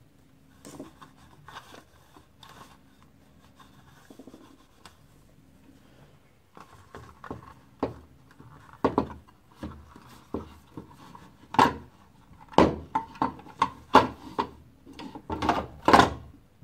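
Hard plastic parts of a Lexmark laser-printer imaging unit being handled: light rubbing and tapping at first, then from about halfway a run of sharp clicks and knocks as the photoconductor drum is set back into its housing.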